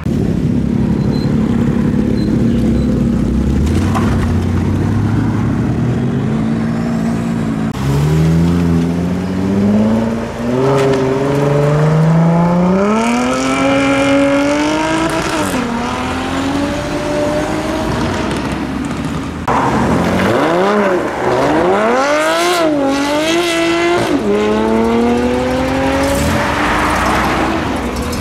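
Classic car engines running at low revs, then revving hard and accelerating away, the pitch climbing and dropping back with each gear change. A little past the middle come quick up-and-down throttle blips, followed by another hard pull away.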